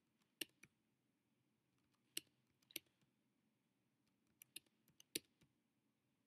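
Computer mouse clicking several times, some clicks in quick pairs, as entries are picked from a dropdown menu, against near silence.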